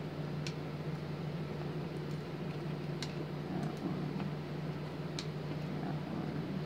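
Steady low hum of a running fan or appliance, with a few light sharp clicks as small tools and clay pieces touch the glass work surface.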